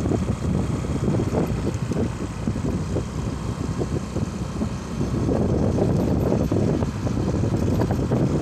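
Vehicle travelling along a paved road: a steady low rumble of engine and road noise.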